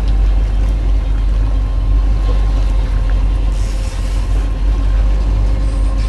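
Charter fishing boat's engine running steadily at low trolling speed, a constant low drone with a faint steady whine above it, heard on board.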